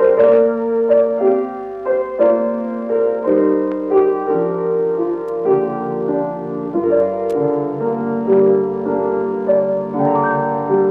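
Background piano music: a slow instrumental passage, notes and chords struck about once a second and left ringing.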